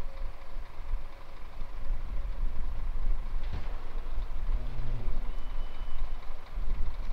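A fire brigade crane truck and its escort car driving away along the road, a low, uneven engine rumble with a single click about three and a half seconds in.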